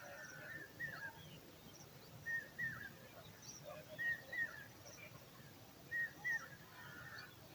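Nestling bird's begging calls: short, high two-note chirps, each pair ending in a downward drop and repeated about every two seconds, as the hungry chick calls for food.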